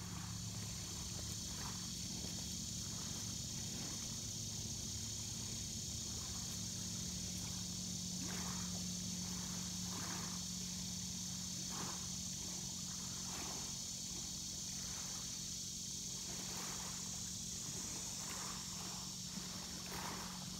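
Insect chorus, a continuous high buzz, over a low steady hum.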